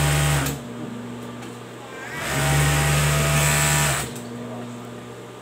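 Overlocker (serger) stitching fabric, its motor running in two bursts: a short run that stops about half a second in, then a longer run of nearly two seconds starting about two seconds in. A lower steady hum continues between the runs.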